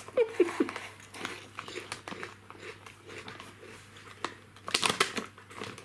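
Crisp Calbee Swiss wing flavoured potato chips being crunched and chewed, with the crinkle of the foil chip bag being handled; the sharpest crackles come just at the start and again near the end.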